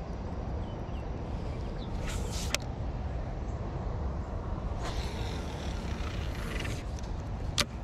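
Low wind rumble on an action camera's microphone, with two stretches of rustling and a couple of sharp knocks as an arm brushes across the camera.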